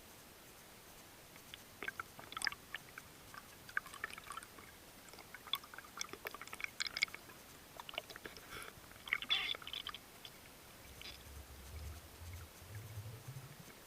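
Underwater sound in a river: irregular clicks, crackles and gurgles of water and bubbles, then a low rumble near the end.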